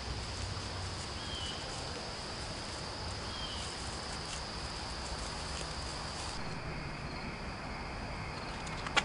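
Outdoor ambience of insects, likely crickets, trilling steadily at a high pitch, with two short bird chirps in the first half. About six seconds in, the background changes abruptly to a different, quieter steady ambience.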